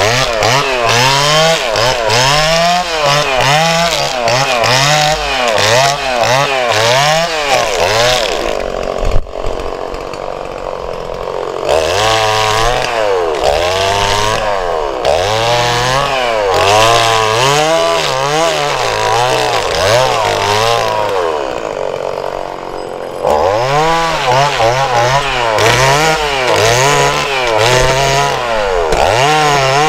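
Two-stroke chainsaw with a barker attachment stripping bark off a fir log, its engine revving up and down in quick repeated swells as it is worked along the log. It eases to a lower, lighter note about 9 seconds in, with a single knock, and again around 21 seconds, then bites back in at full revs.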